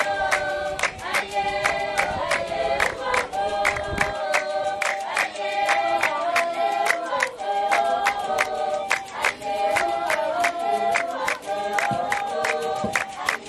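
A group of San women singing a dance song together in call-like repeated phrases, with fast, steady hand clapping keeping the beat.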